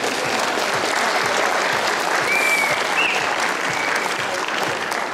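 Audience applauding steadily, with a short whistle about two seconds in.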